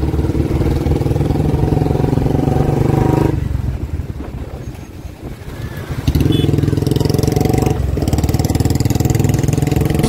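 Motorcycle engine running steadily under way. It drops off for a couple of seconds around the middle, then picks up again.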